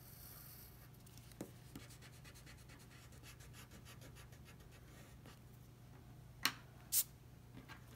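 Pencil lead scratching across paper in a run of short sketching strokes, followed near the end by two sharp taps about half a second apart.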